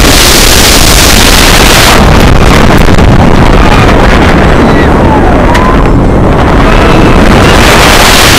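Loud wind rushing over a microphone riding in the front seat of a roller coaster train at speed, over the low rumble of the train running on its steel track. The rushing eases as the train slows over the crest of a hill about two seconds in, and comes back as it dives down again near the end.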